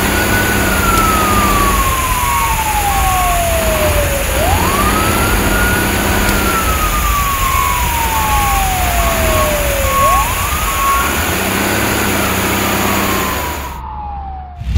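Fire engine siren wailing: each cycle rises quickly, then falls slowly over about four seconds, three times in all, over a steady low engine rumble. It fades out near the end.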